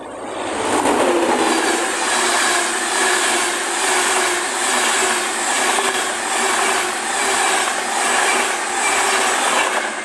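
LNER InterCity 225 train (Class 91 electric locomotive 91107 with Mark 4 coaches and driving van trailer 82222) passing close by. A loud rush of wheel and rail noise swells within the first second, then holds with a rhythmic pulse about twice a second as the bogies go past, and falls away at the end.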